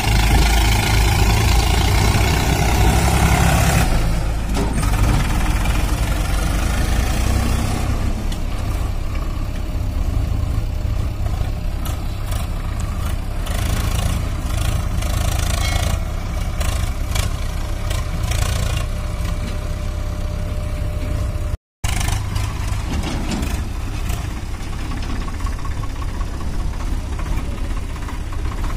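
Swaraj 744 XT tractor's three-cylinder diesel engine running steadily under load as it pulls a trolley heaped with sand. It is louder for the first few seconds, and the sound drops out briefly about two-thirds of the way through.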